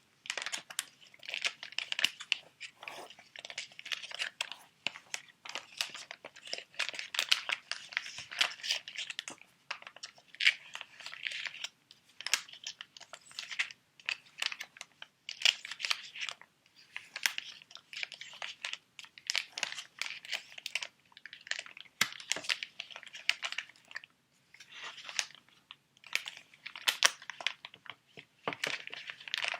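Plastic sheet-mask pouches being handled and crinkled close to the microphone, in crackly bursts with short pauses between them.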